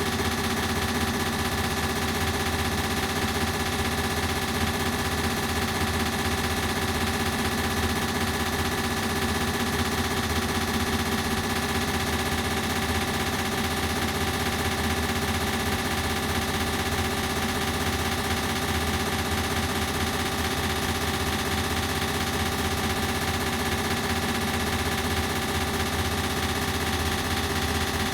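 Ceiling fan running steadily, its motor hum and blade whir layered with an added echo effect into a dense, unchanging drone of many steady tones with a fine rapid flutter.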